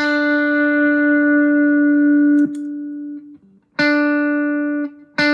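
Electric guitar picking a single D note through a JHS Ross Compressor turned all the way up, three times. Each note holds at an even, squashed level for one to two and a half seconds, then is muted.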